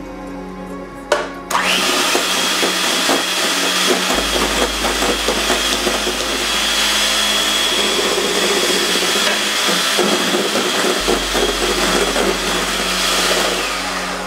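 Electric hand mixer beating egg whites into meringue in a stainless steel bowl: the motor starts loudly about a second and a half in and runs steadily with a high whine, easing off near the end.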